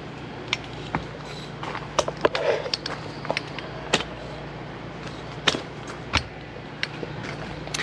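Handling and movement noise: irregular sharp clicks and light knocks as a camera is carried down along the side of an RV, over a steady low hum.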